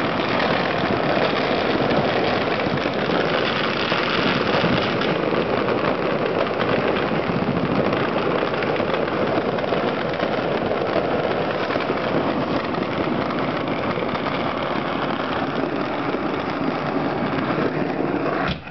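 Firecrackers and fireworks going off all around at once, so many that the bangs run together into one unbroken, steady crackling noise.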